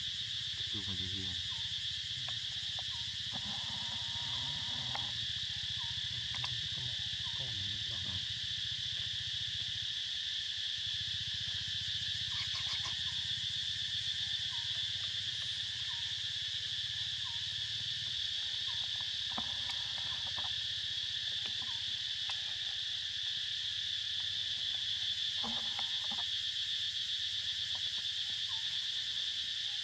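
A steady, high-pitched insect chorus with no pauses, and a few faint brief rustles and clicks beneath it.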